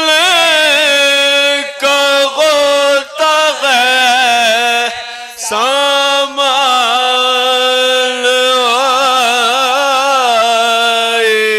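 Unaccompanied male voices chanting soz, a Muharram lament: a lead reciter with a group of men singing in unison, holding long notes that waver in pitch, with a brief break about five seconds in.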